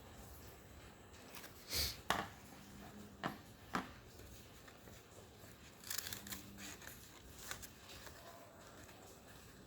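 Paper handled at close range: a string of short, sharp rustles and crinkles as a paper cube is folded and pressed together, some in quick clusters.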